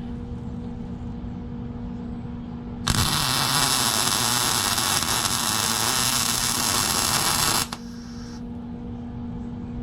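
MIG welder arc crackling and hissing steadily for about five seconds as a weld is laid on a steel subframe connector at the chassis, starting about three seconds in and cutting off sharply. A steady electrical hum is heard before and after the weld.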